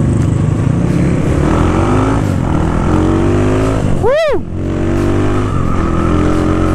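Honda GL motorcycle's single-cylinder four-stroke engine with an aftermarket exhaust, running under way. Its pitch climbs twice as it pulls through the gears, with a quick rev up and back down about four seconds in.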